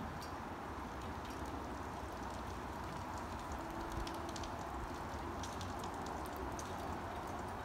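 Rain falling steadily: an even hiss with many scattered sharp drop ticks.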